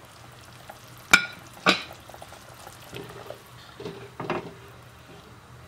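Ceramic bowl and spatula knocking against a non-stick pot as chopped banana is scraped into simmering coconut milk: two sharp clinks about a second in, then softer scraping and sloshing as the mixture is stirred.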